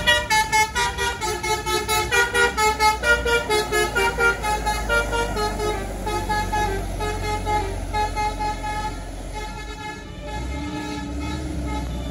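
Bus telolet horn playing a rapid melody of short stepped notes over the bus's running engine; the tune fades out after about six to eight seconds, leaving the engine.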